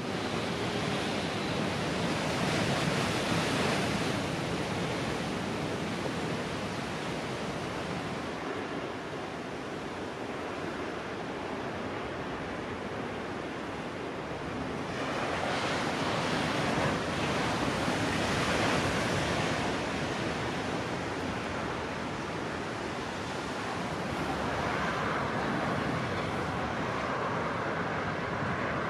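Heavy storm surf from a 7 m Atlantic swell: a dense, steady rush of breaking waves that swells louder twice.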